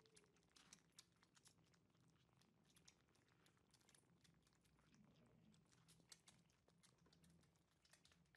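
Kittens faintly crunching dry cat food, a steady run of small, irregular crisp clicks as they chew.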